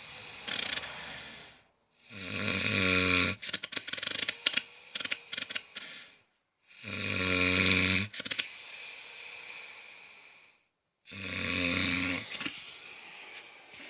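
A person snoring heavily. Three loud, pitched snores come about four to five seconds apart, each lasting about a second and a half and followed by a quieter, breathy stretch with scattered crackling clicks.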